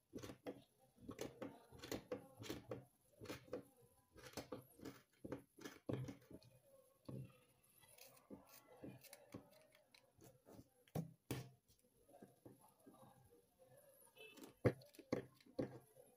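Scissors snipping through the yarn fringe of a knitted scarf: a run of faint, irregular snips and clicks, with light handling rustle of the yarn between cuts.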